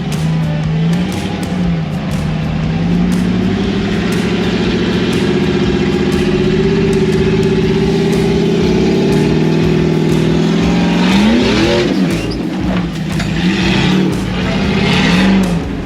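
Off-road 4x4's engine working under load. Its pitch climbs a few seconds in and holds high for several seconds, then drops, with a quick blip of the throttle up and back down past the middle and uneven throttle after that. Scattered sharp clicks and knocks sound over it.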